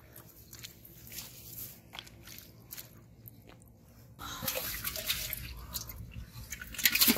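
Water splashing and sloshing in an aluminium pot holding freshly caught live fish. Small scattered clicks and drips at first, then louder sloshing and splashing from about four seconds in, loudest near the end.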